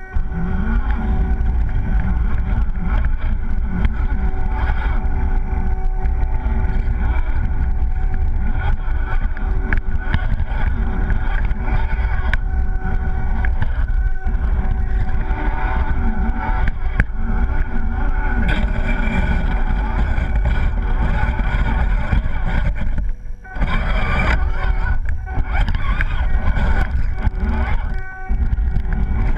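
Electric RC rock crawler driving through snow, picked up by a camera mounted on the truck itself. The motor and gears run with a steady whine of several tones over a heavy low rumble of the body shaking, and the drive cuts out briefly twice near the end.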